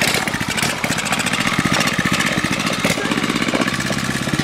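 The small single-cylinder engine of a 107cc ATV running steadily with a fast, even firing rhythm. It has trouble holding an idle, and its idle screw has just been turned up a little.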